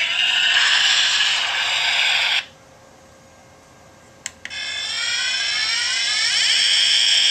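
Electronic sound effects from a toy Klingon Bird of Prey starship, played through its small built-in speaker. A hissing effect cuts off suddenly about two and a half seconds in, a sharp click follows about four seconds in, and then a new effect swells in as a sweeping, rushing whoosh that slides in pitch.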